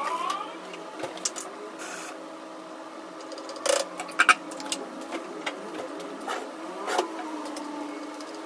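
Kitchen clatter of a metal spoon and cookware: several sharp clinks against pots and a plastic container, the loudest a quick pair about four seconds in, over a steady mechanical hum.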